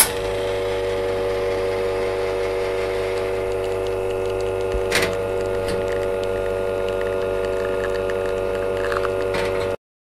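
Espresso machine running steadily while a shot is pulled: a constant low hum under a steady ring of several tones, with a short click about five seconds in, cutting off suddenly near the end.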